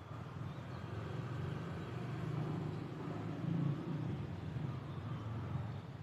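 Low rumble of a passing vehicle in city traffic. It swells to its loudest a little past the middle and fades near the end, with a few faint bird calls above it.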